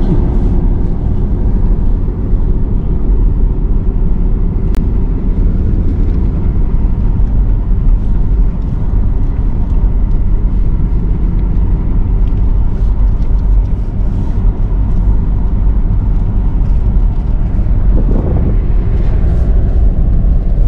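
Four-wheel-drive vehicle driving on a rough dirt track: a steady, loud rumble of engine and tyres, with scattered ticks and knocks throughout.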